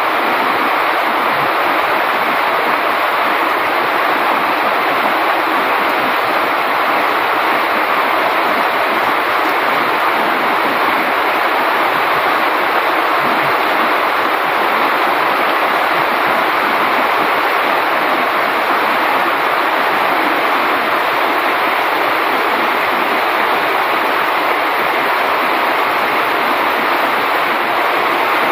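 Heavy rain falling steadily on a roof and the surrounding garden foliage: a dense, even hiss.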